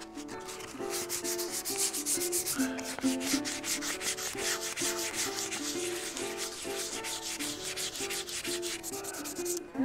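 Sandpaper being rubbed by hand over a stone oloid: quick, even back-and-forth sanding strokes that start about a second in and stop just before the end.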